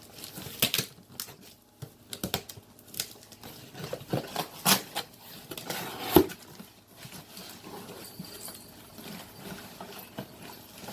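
A package being opened by hand: irregular rustling, crinkling and scratching of packaging, with scattered clicks and a sharper snap about six seconds in.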